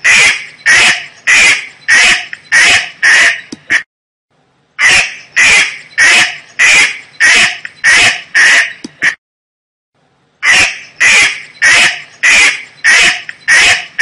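Mallard duck quacking in three runs of about seven loud quacks each, roughly two a second, with a pause of about a second between runs.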